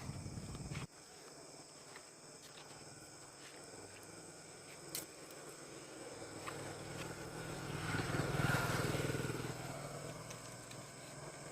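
Steady insect chorus of high, thin tones, with a vehicle passing that rises to a peak about eight and a half seconds in and then fades; a single short click about five seconds in.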